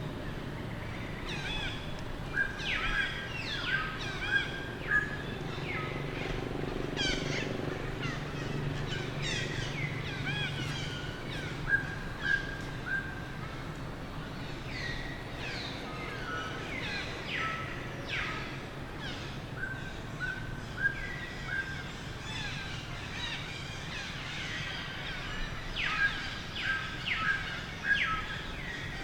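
Many short, high-pitched chirping calls, some sweeping down and some repeated in quick runs, over a steady low hum.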